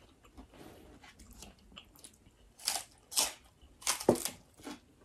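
Close-miked eating: chewing with about four crisp, loud crunches in the second half, the sound of biting into and chewing crunchy food.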